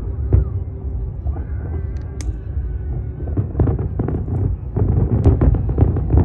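Aerial firework shells bursting in rapid volleys, heard from a distance as a continuous low rumble of booms with sharp cracks on top. The bursts thin out about a second in, then come thick and fast again from about halfway.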